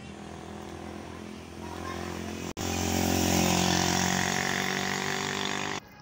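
A motor vehicle engine running steadily. There is a brief dropout just past halfway, after which it is louder, and it cuts off abruptly near the end.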